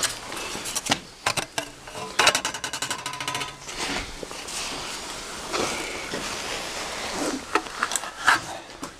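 A thin sheet-metal strip clatters and scrapes as it is slid into a homemade steel-angle seaming brake, with sharp metal clicks and knocks. There is a fast rattle about two seconds in, and scraping after it.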